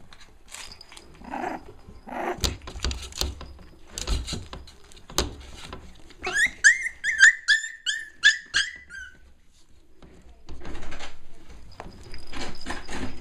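Two Cavalier King Charles Spaniel puppies playing and tussling over toys on a rug: scuffling and a few sharp knocks, with a quick run of about ten high squeaks in the middle and more rustling near the end.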